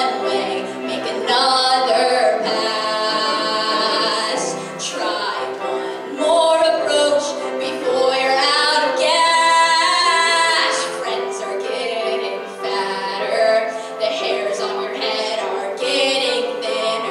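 A woman singing a musical-theatre song solo into a microphone. She holds two long notes with vibrato, one about two seconds in and one near the middle.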